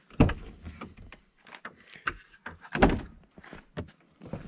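Pickup truck's rear cab door unlatched and pulled open: two loud clunks about two and a half seconds apart, with lighter clicks and rustles between.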